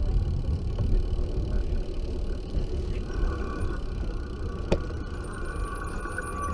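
Wind buffeting the microphone of a camera mounted on a recumbent trike as it rolls along a paved path, a steady low rumble. A faint steady whine joins about three seconds in, and there is a single sharp click just before the five-second mark.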